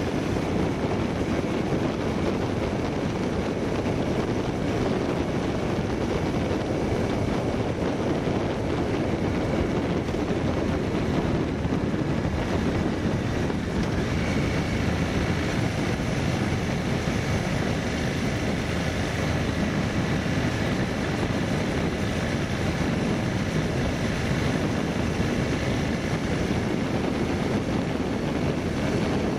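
Steady road and wind noise from a vehicle on the move, with a faint high whine joining about halfway through.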